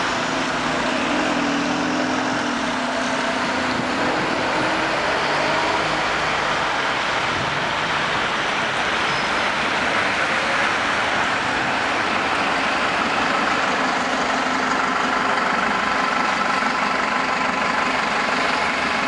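Traffic on a wet main road in heavy rain: a steady hiss of rain and tyres, with the hum of cars and buses running and idling.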